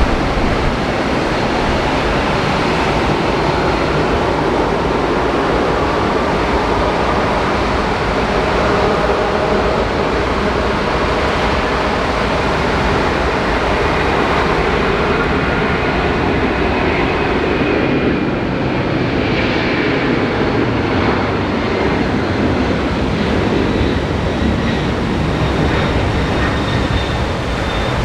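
Jet airliner engines running loud and steady, with a faint whine that slowly shifts in pitch, over the noise of heavy rain and water spray.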